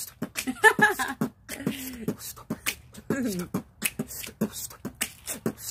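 A man beatboxing: a steady rhythm of mouth-made kick and snare hits, several a second, with short voiced notes between them, laying down the beat for a gospel song.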